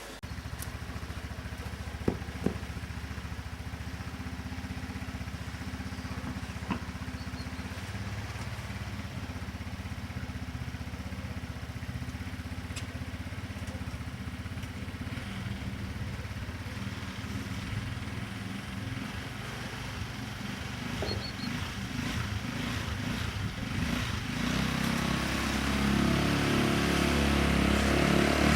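A 150 cc ATV engine running steadily, growing louder over the last several seconds. Two sharp clicks sound about two seconds in.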